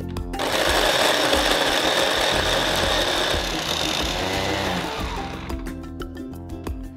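Small electric food chopper running steadily as it chops chillies, ginger and garlic with little liquid. It stops about five seconds in, leaving background music.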